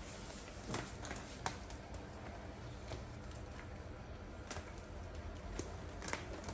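Sparse light clicks and snaps of hands picking over leafy stems in a plastic basin, with a few sharper knocks in the second half as a wicker basket is tipped over on a concrete floor.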